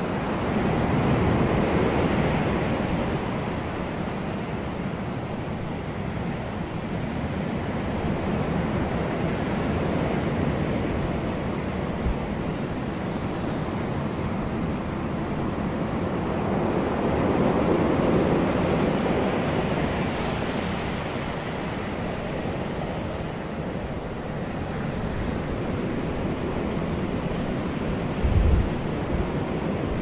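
Ocean surf breaking and washing up a sandy beach, a steady rush that swells as each wave breaks, strongest about two seconds in and again past the middle. A brief low thump sounds near the end.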